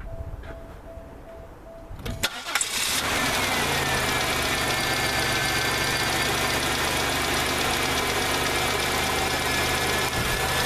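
1998 Oldsmobile Regency's 3.8-litre V6 started: a brief crank about two seconds in, catching at once and then idling steadily. It runs evenly, its misfire cured by a new ignition coil, with a little lifter noise.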